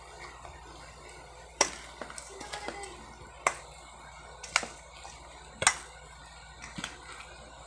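A metal spoon clinking against a stainless steel mixing bowl while stirring a chunky sisig mixture: four sharp clinks about a second apart, with softer taps near the end.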